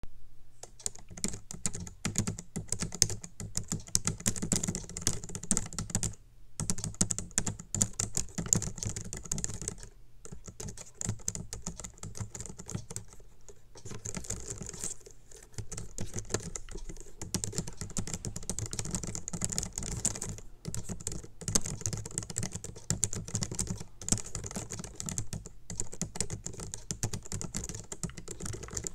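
Rapid, continuous tapping on the keys of a Logitech wireless keyboard, with both hands pressing random keys and a few brief pauses.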